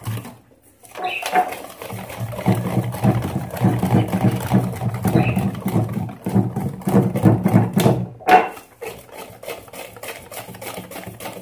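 Wire whisk beating pancake batter in a bowl: a fast, rhythmic clatter of the whisk against the bowl. It is loud for the first several seconds and softer after about eight seconds.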